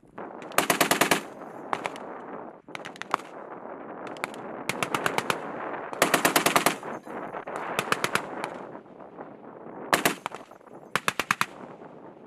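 Humvee turret-mounted machine gun firing in repeated short bursts of several rounds each, with the reports echoing between bursts.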